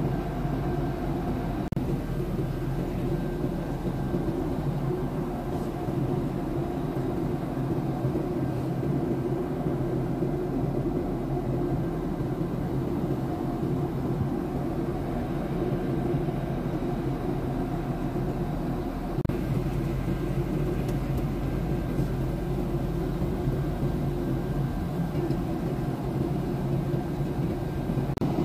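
Steady cabin noise of a jet airliner in cruise flight: an even drone of engines and rushing air with a faint steady hum in it.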